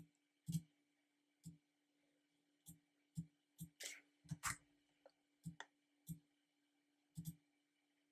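Faint computer mouse clicks: about fifteen scattered single and double clicks, with a brief scratchy noise around four seconds in, over a faint steady hum.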